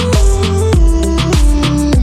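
Background music with a steady beat, held synth-like notes and deep bass.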